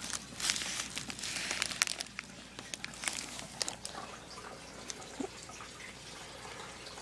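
Thin plastic bags rustling and crinkling as they are handled, with scattered light clicks and taps. The handling is busiest in the first two seconds and quieter after.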